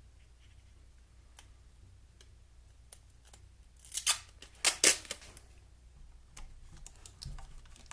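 Foil tape being worked into strips to cover exhaust manifold ports: two short crinkly rips about four and five seconds in, with light clicks and rustles of handling around them.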